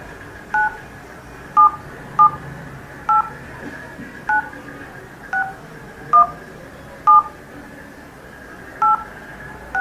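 Touch-tone (DTMF) keypad beeps from a smartphone's in-call dial pad as digits are pressed one at a time. About ten short two-note beeps come at uneven intervals as a 12-digit Aadhaar number is keyed into an automated phone menu.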